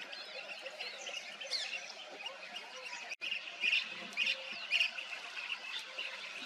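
Wild birds chirping and calling: quick overlapping chirps and short whistled notes, with the sound cutting out for an instant about three seconds in.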